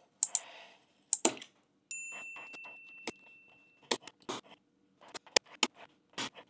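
Utility knife blade drawn again and again along a steel ruler, scoring an acrylic sheet: short scratching strokes, coming several a second in the second half. About two seconds in, a bell-like ding rings and fades over about two seconds.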